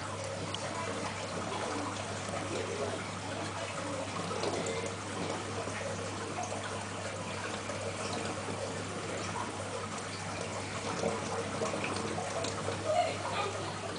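Steady trickle and splash of aquarium water circulating, over a low steady hum.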